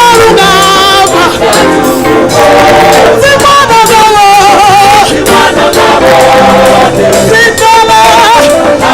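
Gospel worship song: several voices sing held, wavering notes over music with a steady percussion beat.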